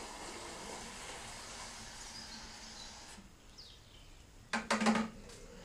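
Water running from a tap into a plastic chicken waterer, a steady rush that stops abruptly about three seconds in as the tap is shut. A brief louder knock follows near the end, with faint bird chirps in the background.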